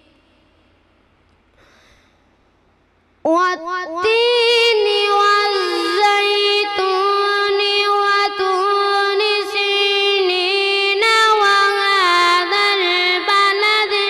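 A boy reciting the Quran in the melodic tilawat style through a microphone, in a high, clear voice. After about three seconds of near silence he starts a long phrase, holding drawn-out, ornamented notes.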